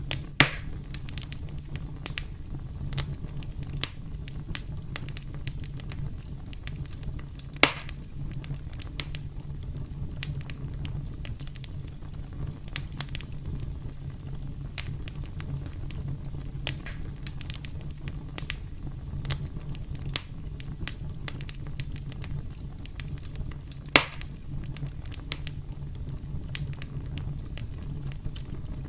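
Campfire burning with a steady low rumble and frequent small crackles, with three louder pops, one at the very start, one about a third of the way in and one near the end.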